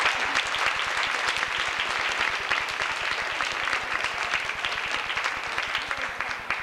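Audience applauding, the clapping gradually fading.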